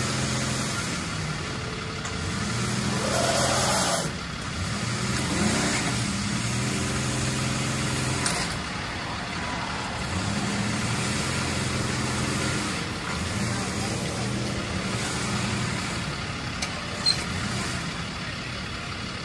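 Heavy-duty tow truck's engine running, a low drone that swells and falls back in spells of a second or two as the truck strains to move with a tire stuck.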